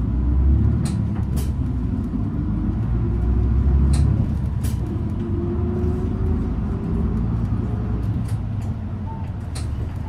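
City bus engine and drivetrain running as the bus drives, a steady low rumble heard from inside the cabin, with the engine note rising gradually and a few short clicks.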